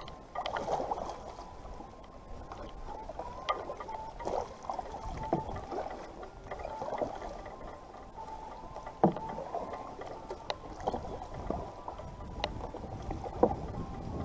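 Small waves lapping and slapping against the plastic hull of a Lifetime Tamarack sit-on-top fishing kayak, with a few sharp knocks, the loudest about nine seconds in.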